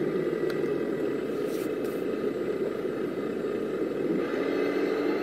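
Scratch-built RC rollback tow truck standing with a steady low running hum. Near the end a motor whine comes in and rises slowly as the truck starts to pull away.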